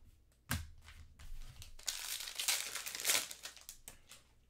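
Foil trading-card pack wrapper being torn open and crinkled, after a light tap about half a second in.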